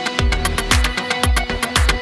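Electronic dance background music with a steady kick-drum beat, about two beats a second, and hi-hats.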